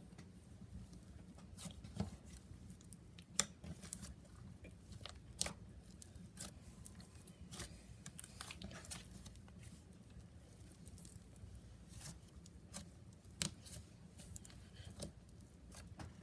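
Hands kneading clay into sticky slime: faint, irregular wet clicks and little snaps as the slime is pressed and pulled apart.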